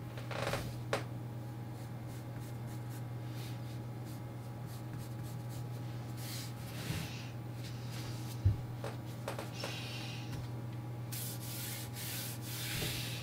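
Pencil strokes rubbing on a sheet of paper in short scratchy bursts, with a longer run of strokes near the end, over a steady low hum. One short knock about eight seconds in.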